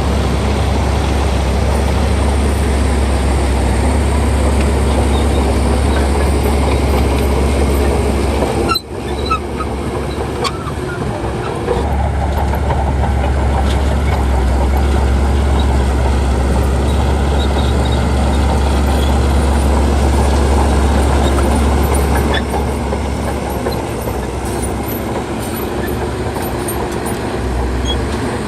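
Heavy diesel earthmoving machinery running under load, a steady low drone, with a brief drop about nine seconds in before it picks up again.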